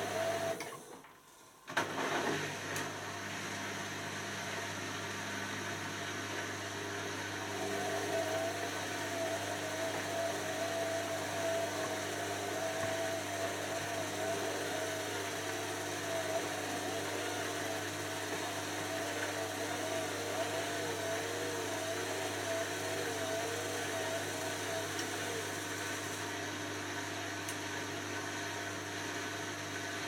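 Beko WM5100S front-loading washing machine running, its drum motor giving a steady hum with a whine that wavers up and down in pitch while the laundry tumbles. The sound drops out briefly about a second in.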